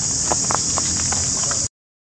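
A steady, high insect chorus, with the crisp rustles of a macaque's footsteps on dry fallen leaves in the first second and a half. All sound cuts out briefly near the end.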